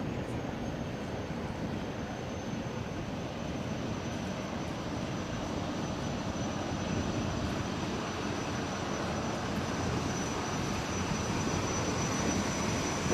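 Jet boat running at speed: a steady rush of engine and water noise with a thin, high whine held throughout, growing slightly louder.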